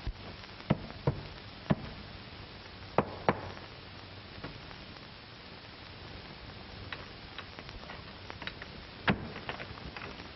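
A hand tool striking and chipping at a mine's rock wall: a string of sharp, irregular knocks, a few close together, with the loudest strike near the end, over the steady hiss of an old film soundtrack.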